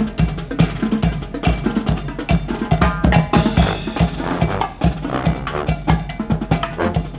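Marching band playing on the move: snare and bass drums with cymbals keep a quick steady beat, with brass (sousaphones, trombones, trumpets) sounding over it.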